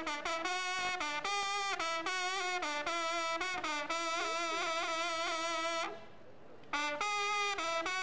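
A group of trompes de chasse (large coiled French hunting horns) playing together, breaking off for under a second about six seconds in, then starting again.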